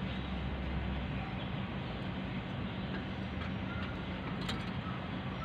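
A steady low hum under even background noise, with a few faint clicks of metal brake parts being handled about four and a half seconds in.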